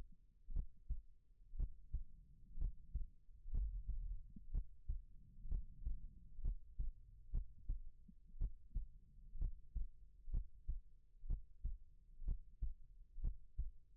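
Slow, steady heartbeat: paired lub-dub thumps, about one beat a second, over a low rumble.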